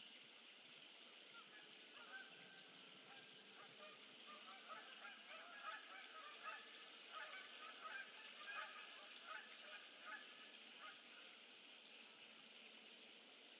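Faint calls of a flock of birds: many short calls overlapping, building from about two seconds in, thickest in the middle and dying away before the end.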